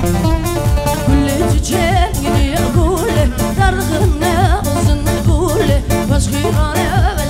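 Halay dance music with a steady, fast drum beat and a singer's wavering, ornamented vocal line that comes in about a second and a half in.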